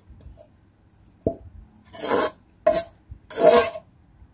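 Fish soup being spooned from a metal ladle into a bowl: a short tap about a second in, then three splashing plops of broth and fish pieces landing.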